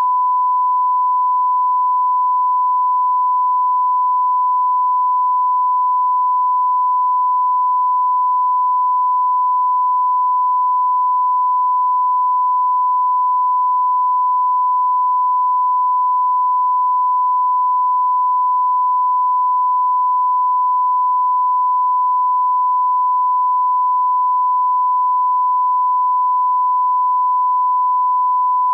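Steady 1 kHz line-up tone, the reference tone laid over colour bars at the head of a broadcast tape for setting audio levels.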